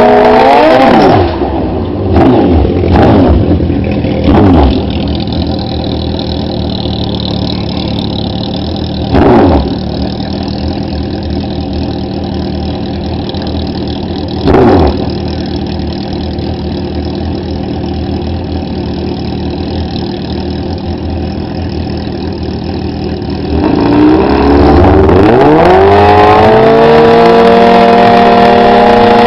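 Sport motorcycle engine running hard, then dropping to idle about a second in. It gets three quick throttle blips and idles steadily with two more short blips. Near the end the revs climb and are held high.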